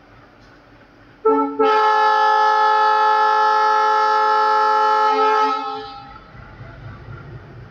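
Train locomotive horn: a short toot, then one long blast of about four seconds that fades away. A low rumble of the running train follows near the end.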